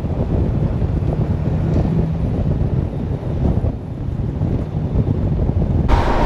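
Strong wind buffeting the microphone: a loud, gusting low rumble. Near the end it switches abruptly to a harsher, brighter noise with crackles.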